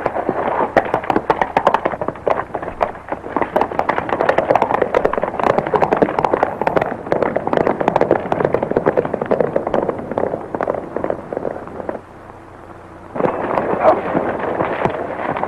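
Horses galloping, their hooves a dense, rapid clatter that drops away briefly about twelve seconds in and then resumes.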